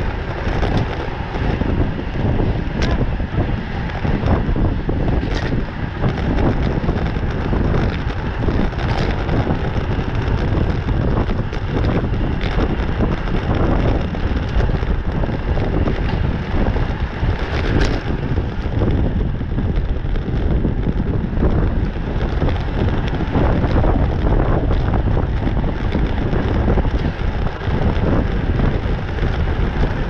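Steady wind noise buffeting the microphone of a bike-mounted camera on a road bike racing at about 26 mph, with a few brief clicks scattered through it.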